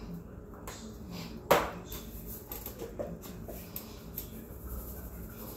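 Handling of a shaker container and tableware over a plate: scattered light clicks and taps, with one sharp knock about a second and a half in.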